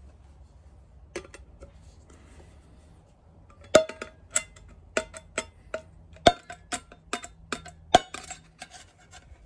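Quick series of sharp metallic clicks, about two or three a second from nearly four seconds in, as a tool knocks and scrapes against the metal tin of Isopon body filler while scooping out the filler.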